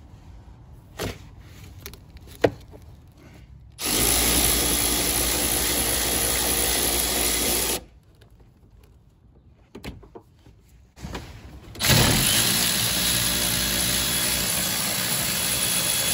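A couple of sharp clicks, then a cordless electric ratchet running in two steady runs of about four to five seconds each, spinning off the master cylinder's mounting nuts.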